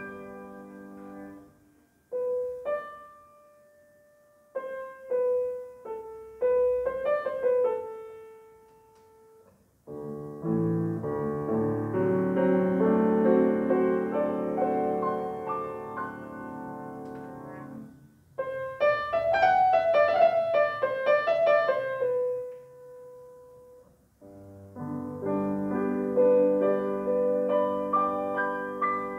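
Solo grand piano playing classical music in short phrases broken by brief pauses, with a fuller passage of chords near the middle and a bright run up into the high notes a little past halfway.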